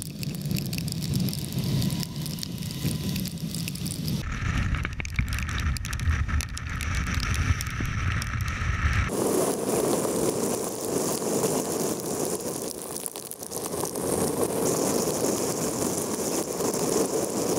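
Wind and heavy rain on the camera microphone of an electric motorcycle riding a wet highway: a steady rushing noise with rain and road spray hiss. The sound changes abruptly twice, about four and nine seconds in.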